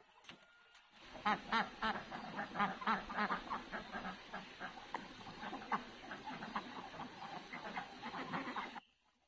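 A flock of birds calling over one another in a dense, busy chatter. It starts about a second in and cuts off abruptly near the end.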